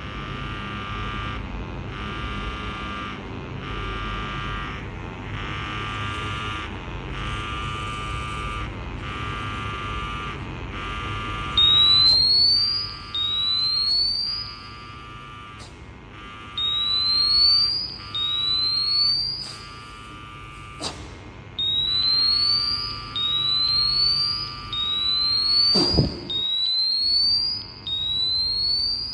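Portable multi-gas detector's alarm: repeated rising electronic chirps of about a second each, starting about twelve seconds in, sounding because exhaled breath has pulled the oxygen reading below 19.5%. Before the alarm there is a steady pulsing hum while breath is blown into the sampling tube, and a sharp click near the end.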